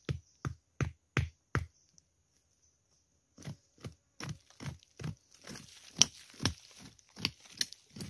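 A long knife blade chopping into loose forest soil, striking the ground in a steady rhythm of about three blows a second. The strokes pause for nearly two seconds, then start again with a light scrape of loose earth between them near the end.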